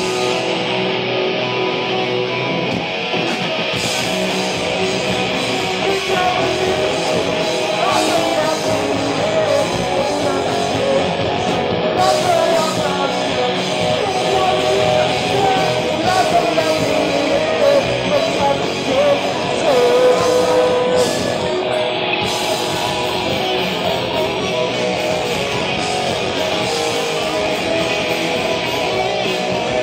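Rock band playing: distorted electric guitars, bass guitar and drum kit, with a voice singing over them through the middle of the stretch.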